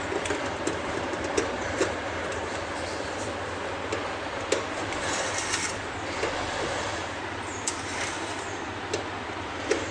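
Screwdriver driving the mounting screws of a DVD-ROM drive into a computer case's metal drive bay: scattered sharp clicks and knocks, with a brief scrape about five seconds in, over a steady background hiss.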